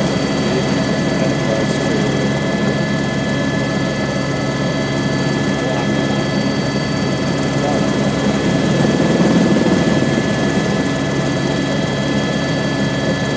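Airbus H125 (AS350 B3e) helicopter in flight, heard from inside the cabin: a steady, loud drone of rotor and Arriel turboshaft engine with thin, steady high whining tones over it, swelling slightly about two-thirds of the way through.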